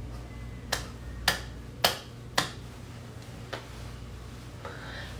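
Four sharp clicks, evenly spaced at roughly two a second, then a single fainter click a second later, over a low steady room hum.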